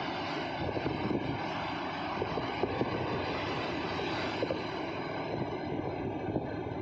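Sea surf breaking and washing over a rocky shore of boulders, a steady rush of foaming water.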